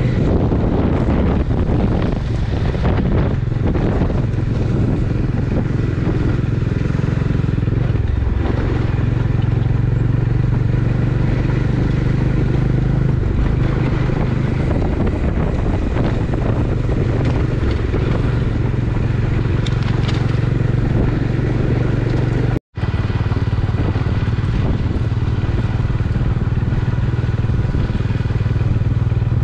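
Motorcycle engine running steadily as the bike rides along, with wind and road noise. The sound cuts out completely for an instant about two-thirds of the way through.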